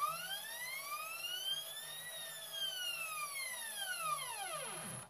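Stepper motors of a Next 3D CNC mill driving an axis through its lead screws on a test G-code move: a whine that rises in pitch as the axis accelerates, peaks about two seconds in, then falls as it slows and stops near the end. A faint steady high-pitched whine and a low hum sit under it.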